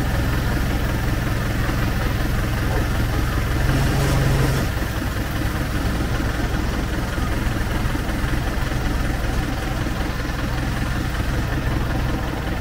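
An engine running steadily with a low hum. One tone in the hum drops out about four and a half seconds in, and the engine then runs on evenly.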